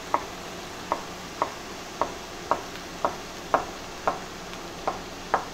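Knife slicing hot dogs on a wooden cutting board, the blade knocking on the board about twice a second, over a quiet sizzle of onions frying in a cast-iron skillet.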